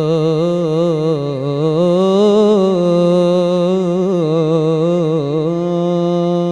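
A solo male voice singing Islamic inshad into a microphone: one long, ornamented melismatic phrase with quick wavering turns, settling on a held note near the end.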